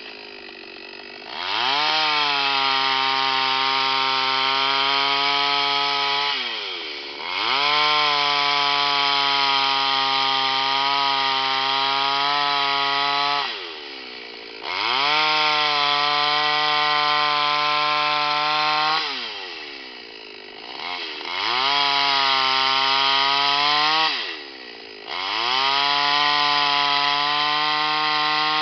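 Oleo-Mac GS650 two-stroke chainsaw ripping a log lengthwise into boards. Five times over, the engine revs up and holds a steady high pitch through the cut, then drops back toward idle.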